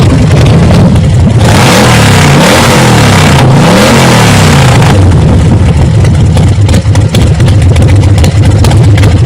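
2008 KTM 530 dirt bike's single-cylinder four-stroke engine running loudly, revved up and down about three times between roughly one and a half and four and a half seconds in, otherwise running steadily.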